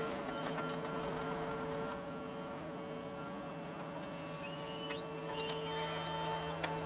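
John Deere 75 excavator running as it digs: a steady engine and hydraulic drone, with brief high whines that step up in pitch a little past halfway.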